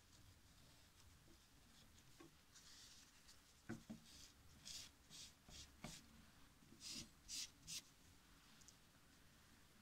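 Faint, short wiping strokes, about eight of them, rubbing old thermal paste off a graphics card's GPU die and cooler, with a couple of light knocks between them.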